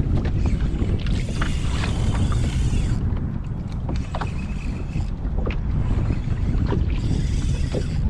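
Wind buffeting the microphone on a kayak at sea, a steady rumble, with water sloshing against the hull and scattered small clicks and splashes.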